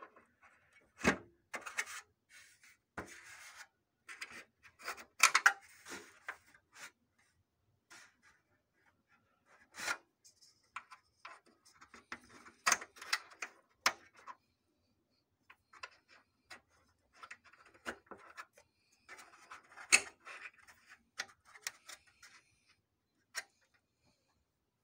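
Plastic cover panels of a Xerox WorkCentre 5855 photocopier being worked by hand, with scattered clicks, knocks and short scraping sounds as a panel is opened and eased loose.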